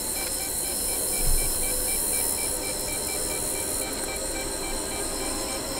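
Steady hiss of outdoor night ambience with a faint high-pitched pulsing repeating about three times a second, and one brief low thump about a second and a half in.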